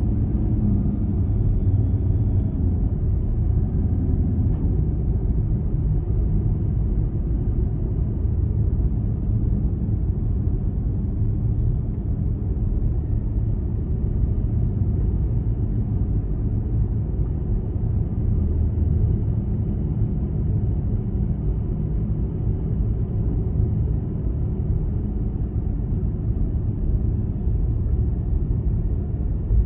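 A car driving on a paved road, heard from inside the cabin: a steady low rumble of tyre and engine noise.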